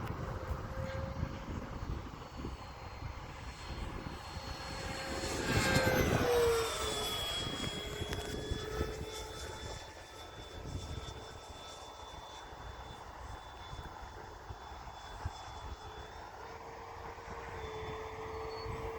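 Freewing Avanti S 80mm electric ducted-fan RC jet whining in flight. It makes a loud close pass about six seconds in, with its pitch dropping as it goes by, then carries on as a steadier, quieter whine. Low wind rumble on the microphone early on.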